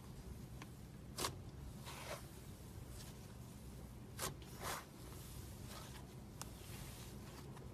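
Fluffy slime being stretched and squeezed by hand: faint crackling and tearing with a few sharp pops, the loudest about a second in and about four seconds in.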